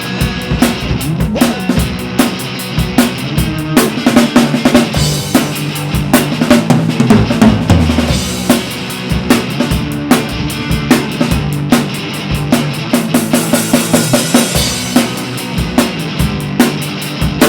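Instrumental break in a punk rock song: a drum kit keeps a busy beat with bass drum and snare hits over sustained pitched backing instruments, without vocals.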